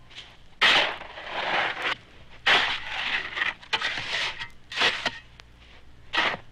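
A run of irregular scraping and crunching noises, the first and loudest coming sharply about half a second in and the others following at uneven gaps of about a second.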